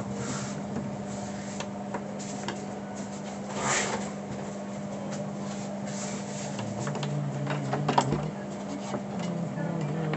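Steady low electrical hum from a Philips 21PT2215 CRT television under repair, which keeps dropping to standby, with scattered light clicks and a brief rushing noise about four seconds in.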